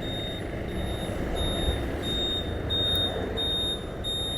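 Motorcycle riding along, its engine and wind noise making a steady low rumble, with a short high beep repeating about every 0.8 s from the turn-indicator buzzer as the rider prepares to turn.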